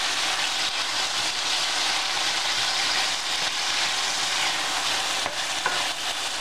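Strips of pork tenderloin sizzling in hot oil in a stainless steel pan, a steady frying hiss, with a few light scrapes of a wooden spoon stirring the meat.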